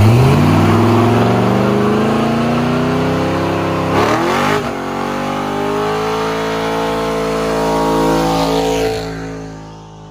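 Squarebody Chevrolet pickup doing a burnout: the engine revs up, climbing in pitch over the first few seconds, then holds high revs with the rear tyres spinning and hissing, before the sound fades out near the end.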